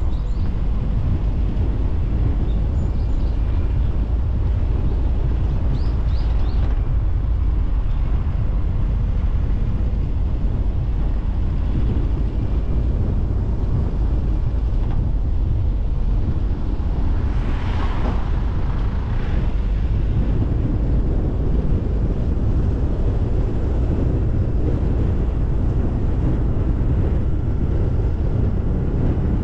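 Car driving at low speed: a steady low rumble of road and wind noise on the microphone. A few faint bird chirps come through in the first several seconds, and a brief rushing swell rises and fades about eighteen seconds in.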